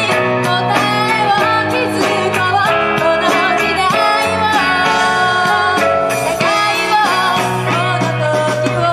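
Live band playing a pop-rock song: electric guitars, keyboard, bass and drums, with a woman singing over them.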